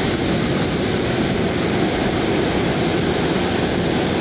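Steady, unchanging jet aircraft noise.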